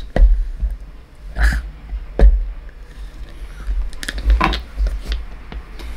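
A few scattered knocks and low thumps from handling a rock tumbler barrel while its inner lid is pushed in to seal it.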